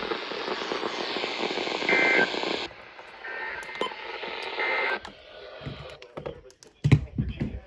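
EAS end-of-message data bursts on a radio alert broadcast: three short two-tone digital chirps about a second apart, over radio static that weakens and then cuts off. A sharp click follows near the end.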